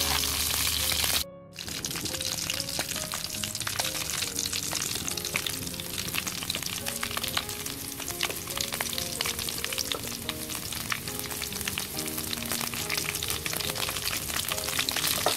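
Pieces of snake deep-frying in hot oil: a steady sizzle thick with small crackling pops. The sound drops out briefly about a second in, then the sizzle carries on more quietly under soft background music.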